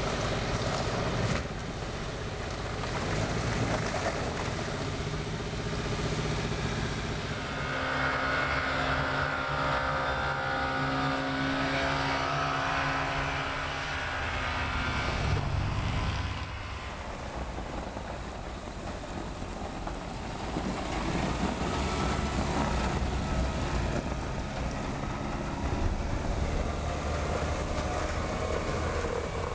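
Small engines of Japanese mini 4x4 trucks running under load off-road, the engine note rising and falling as they are driven hard. The sound changes abruptly a few times.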